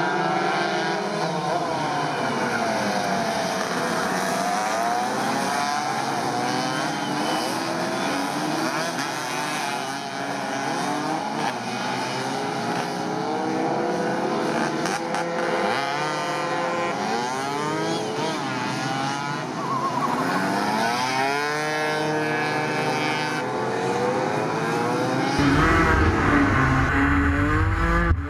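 A pack of two-stroke racing Vespa scooters accelerating away from a race start and running through the gears, many engines revving over one another, rising and falling in pitch. About three seconds before the end the sound switches to a single scooter heard close up from on board, with a strong low rumble.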